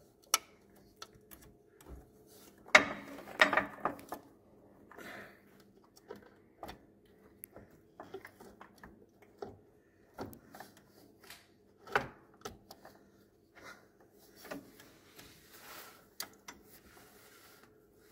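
Hand work on a lawn tractor's steel steering sector gear. Scattered clicks and clinks of metal parts sound as a nut is threaded onto the pivot bolt and the gear is set in place. A quick run of knocks comes about three seconds in, and a sharp knock near twelve seconds.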